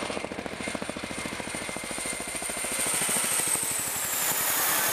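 Boeing CH-47 Chinook tandem-rotor helicopter flying low overhead, its rotors beating rapidly. It grows louder as it comes over, and a high whine drops in pitch as it passes.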